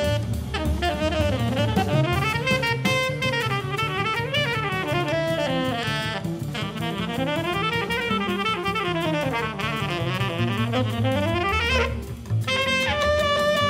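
Jazz trio of tenor saxophone, bass and drum kit. The saxophone plays fast runs sweeping up and down in pitch, then after a brief break about twelve seconds in moves to long held notes, over a walking bass line and busy drumming.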